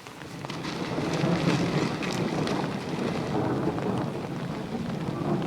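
Hard rain with a low rumble of thunder that swells over the first second and then holds, with scattered raindrop ticks.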